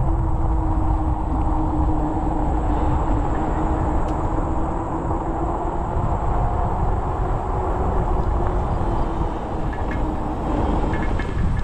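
Riding noise from a fat-tire e-bike: wind rushing over the microphone with a steady, even hum from the bike.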